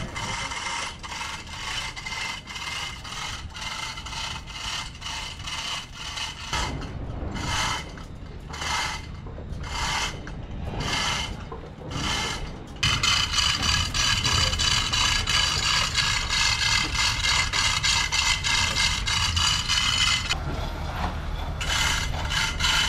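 Hand chain hoist being hauled to lift a wooden rudder: rasping strokes of chain over metal, repeated, slowing to about one a second. About halfway through they merge into a steadier, ringing rasp that breaks off shortly before the end.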